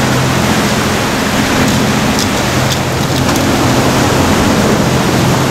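Sea surf washing over a rocky shore: a loud, steady rush of waves, with a steady low hum beneath it and a few faint ticks about two to three seconds in.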